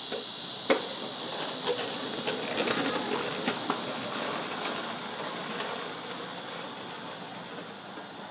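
A kick scooter rolling over wet pavement: a run of rattling clicks from its wheels and deck that grows loudest as it passes close by two to three seconds in, then fades as it rolls away.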